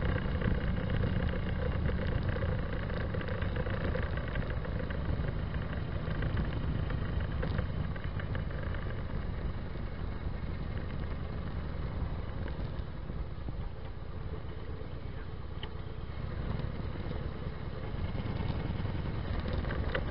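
Motorcycle exhaust fitted with Vance & Hines Longshots pipes and quiet baffles, running steadily while riding, a little quieter through the middle and picking up again near the end.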